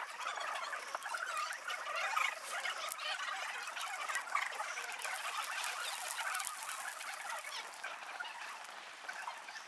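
Birch-bark torch burning, the bark in a split stick crackling and popping with dense, irregular small snaps.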